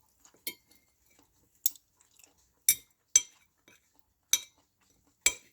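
Cutlery clinking and scraping against a plate while eating, in six sharp, irregularly spaced clinks.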